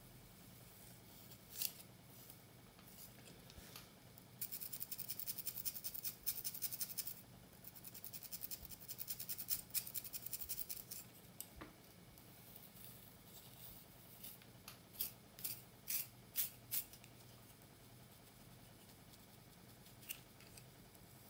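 A thin pick comb scratching and scraping through tightly coiled hair along a scalp parting, close to the microphone. A quick run of fine, rapid strokes comes from about four to eleven seconds in, then a handful of single strokes, over a faint steady hum.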